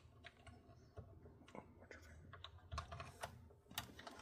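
Faint, irregular clicks and taps of small metal parts being handled: the spring, washer and wing nut being fitted onto the wire-spool spindle inside a MIG welder.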